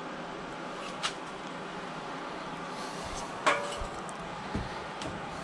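Handling sounds at an open chest freezer: a light click about a second in, then a sharp clunk with a short ringing tone past the halfway point, followed by two dull thumps, over a steady background hiss.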